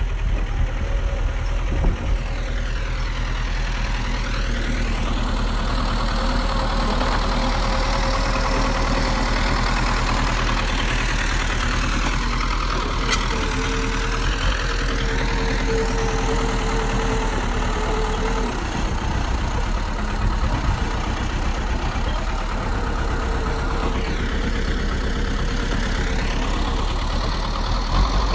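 Bulldozer's heavy diesel engine running steadily, with a thin whine that comes and goes.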